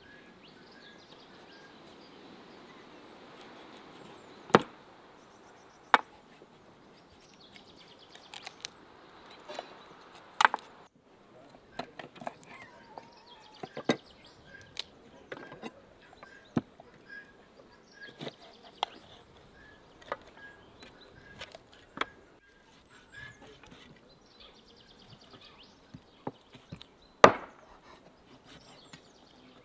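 Kitchen knife cutting through a raw guinea fowl carcass on a wooden cutting board, with irregular sharp knocks of the blade striking the board. The loudest knock comes near the end.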